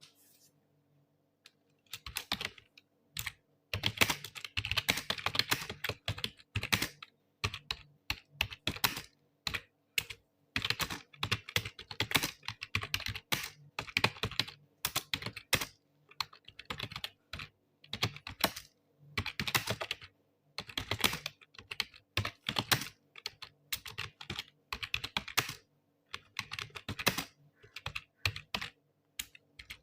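Computer keyboard being typed on in quick runs of keystrokes broken by short pauses, beginning about two seconds in.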